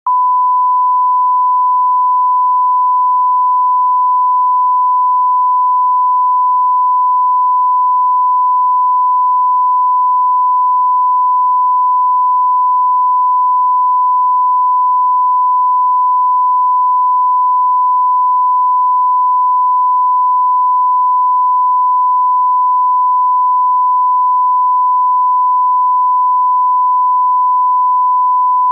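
Steady 1 kHz line-up tone that goes with colour bars: a single unbroken pure tone.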